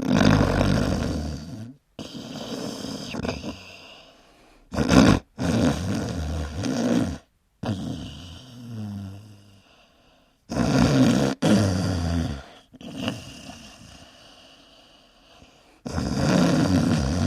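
Dogs snoring loudly: a run of long, rasping snores with quieter breaths between, broken off sharply several times.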